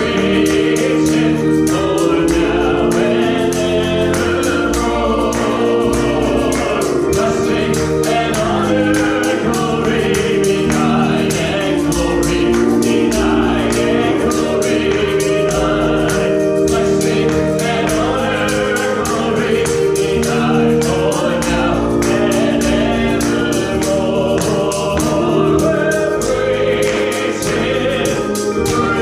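Gospel worship song: a group of voices singing together with a man leading at a microphone, over instrumental accompaniment with a steady beat of about three to four ticks a second.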